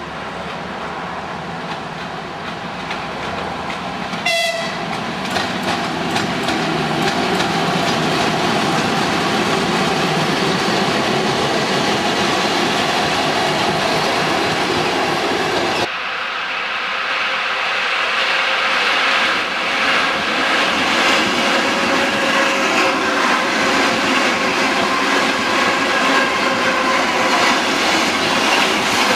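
Electric passenger train passing, wheels clattering over the rail joints, with one short horn blast about four seconds in. Then an ER2 electric multiple unit runs close past with a dense, steady rumble and clatter.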